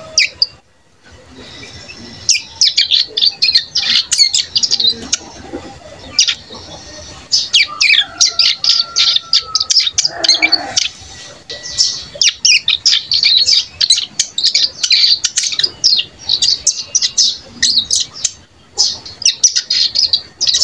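Young ciblek gunung (a prinia) about a month old, twittering in rapid, almost unbroken runs of high chirps: the fine ngeriwik warble of a juvenile learning its song.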